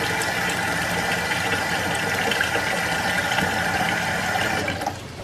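A steady, machine-like hum that drops away near the end.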